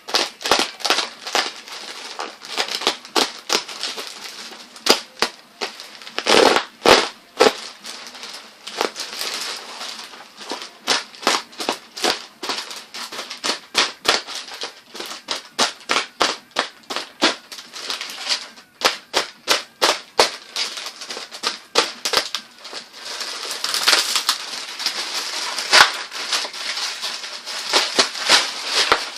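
Packaging being unwrapped by hand: a dense, irregular run of crinkling and sharp crackles.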